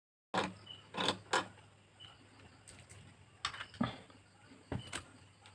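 Sharp clicks and taps of small hand tools on a smartphone's parts during repair, about seven irregular strokes starting abruptly a moment in.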